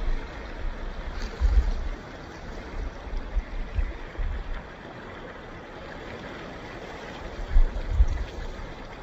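Ocean surf washing steadily, broken by irregular low rumbling thumps, the loudest about one and a half seconds in and again near the end.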